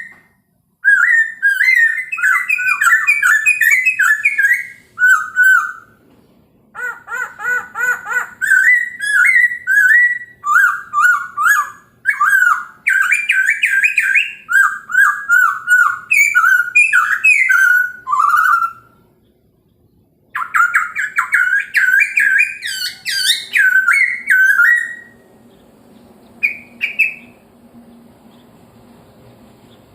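Chinese hwamei (poksay Hongkong) singing loud, varied whistled phrases of rapid repeated notes, with two short pauses; the song stops near the end, leaving only a couple of brief notes.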